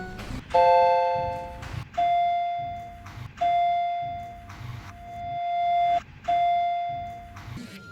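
Vertechs elevator chime tones, altered with audio effects. A three-note chord sounds about half a second in, followed by three single tones at one pitch, each ringing for one to two and a half seconds.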